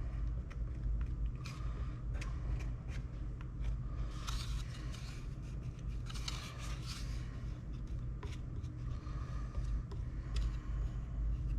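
Light scraping and small clicks of a tool spreading a thin skim coat of JB-Weld epoxy around the rim of a console filler panel, over a steady low hum.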